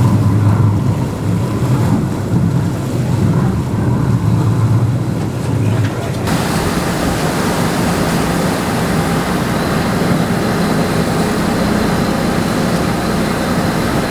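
A sport-fishing boat's engines running under way, a steady low hum beneath wind and rushing water. About six seconds in the sound changes abruptly, with much more rushing noise.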